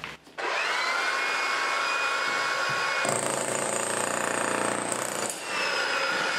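Corded Hilti electric demolition hammer with a pointed bit starting up about half a second in, its motor whine rising, then hammering into a concrete slab. It grows louder and harsher about three seconds in and dips briefly near the end before carrying on.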